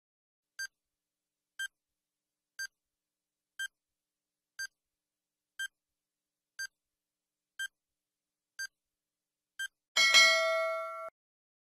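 Quiz countdown-timer sound effect: a short beep once a second, ten in all, then a louder time's-up signal of several steady tones that lasts about a second and cuts off suddenly.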